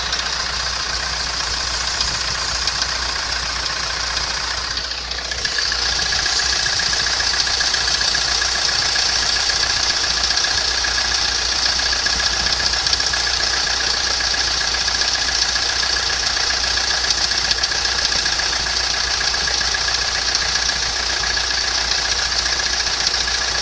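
Mitsubishi 4M41 3.2-litre diesel idling, with a knocking from the air-conditioning belt tensioner pulley bearing. This knock comes on with a cold engine in damp weather and is the sign of a worn bearing. The sound grows louder about five seconds in.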